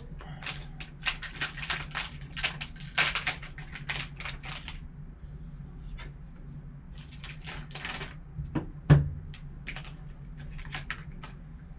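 Sealed trading-card pack being opened and handled: a run of crinkles and clicks of the packaging, with one louder knock about nine seconds in.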